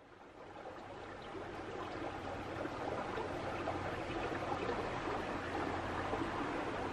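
Steady hiss of water from a creek in the rain, fading in over the first two or three seconds.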